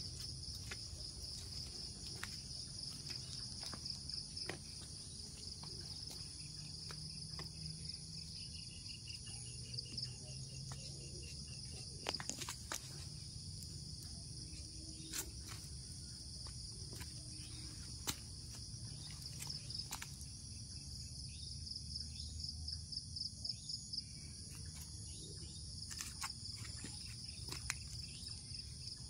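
Insects chirring in a steady, high, pulsing trill, with scattered faint clicks and a low steady rumble underneath.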